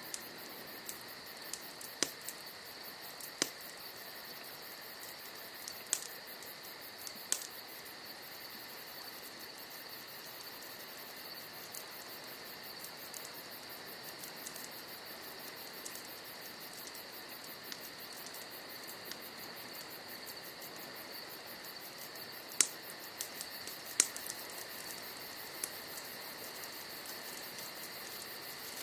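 Crickets trilling steadily over a burning wood campfire, which gives scattered sharp crackles and pops from the logs.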